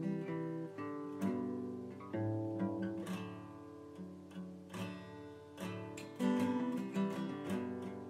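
Background music: acoustic guitar playing a run of plucked notes and strums.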